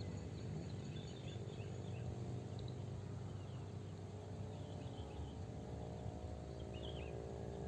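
Quiet outdoor ambience: a low steady background with faint, scattered high chirps throughout.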